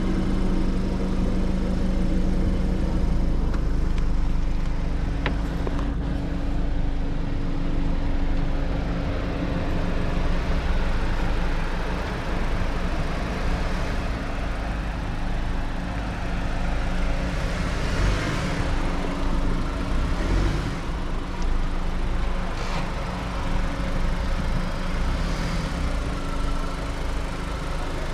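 Mahindra Thar 4x4's engine running steadily as it is driven over off-road ground, after being guided onto the line, with a rushing noise joining in about two-thirds of the way through.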